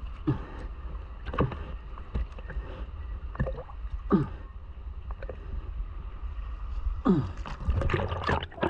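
Underwater sound picked up through a camera housing: a steady low rumble with a few short falling bubbly gurgles, and a busier patch of knocks and rubbing near the end as hands work a mesh catch bag.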